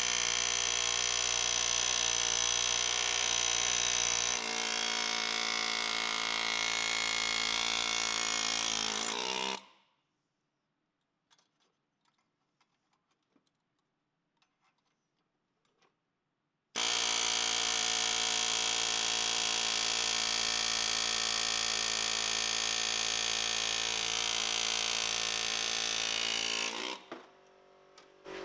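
A handheld cordless power tool running at a steady pitch in two long spells of about ten seconds each, the first dropping slightly in pitch about four seconds in. Between the spells there is near silence with a few faint clicks.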